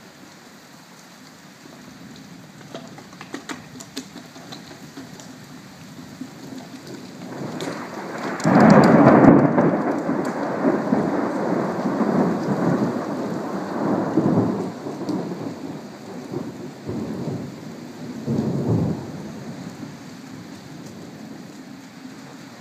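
Thunder during a rainstorm: steady rain, then about eight seconds in a loud clap that turns into a long rolling rumble with several surges. There is another swell near the end before it fades back to the sound of rain.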